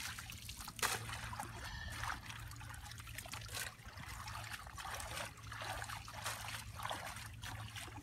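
Shallow river water splashing and trickling as a fishing net is hauled and gathered by hand, with irregular splashes. A steady low hum runs underneath.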